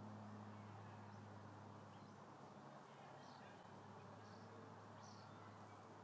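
Near silence: a faint steady low hum, with a few faint, short high-pitched bird chirps from about two seconds in.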